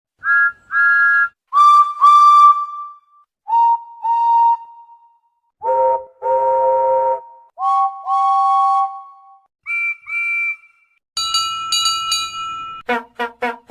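Steam locomotive whistles sounded one after another, each a short toot followed by a longer one, at six different pitches from high and shrill to deep. Then a longer wavering whistle, and near the end a quick run of short blasts.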